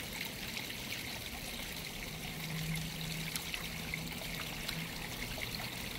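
Steady trickling of running water, with a faint low hum from about two seconds in to about five seconds in.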